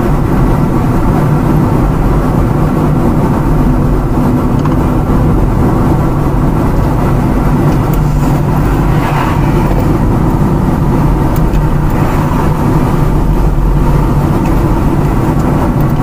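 Car engine and tyre noise heard from inside the cabin while driving, a loud steady hum.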